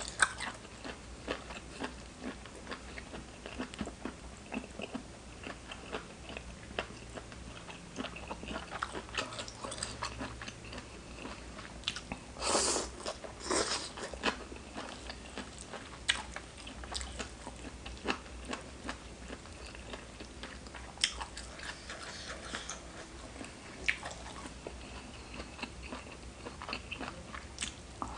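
A person chewing and biting mouthfuls of spicy seafood salad close to the microphone: a steady run of small wet clicks and crunches, with a few louder bites about halfway through.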